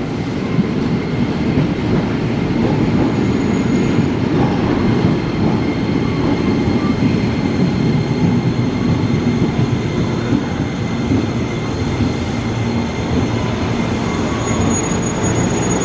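JR 205 series electric commuter train running into the platform, a steady rumble of wheels and running gear as the cars pass close by. A thin high squeal comes in briefly a few seconds in and again near the end.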